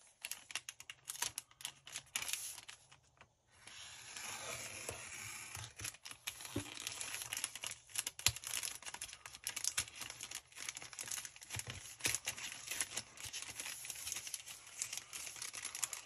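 Plastic poly mailer envelope crinkling and tearing as it is slit with a hobby knife and pulled open by hand: irregular crackles and rips, with a brief pause about three seconds in.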